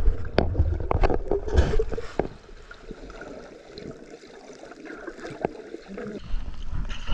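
Water sloshing and splashing heard through an underwater microphone as a snorkeler swims below the surface: a few knocks and a low rumble in the first couple of seconds, then a quieter muffled hiss of water.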